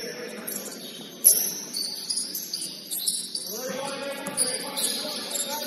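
Basketball game on a gym court: sneakers squeaking in many short, high chirps against the floor, with one sharp thud of the ball about a second in. Players' voices call out from about four seconds in.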